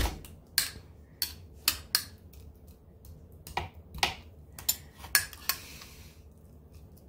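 A metal spoon clinking and scraping against a small ceramic bowl while mashing pumpkin flesh, in about a dozen irregular sharp clinks.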